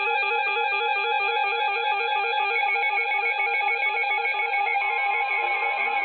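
Electronic music: a held note under a fast, evenly repeating arpeggio of short synth notes, with a thin, band-limited sound.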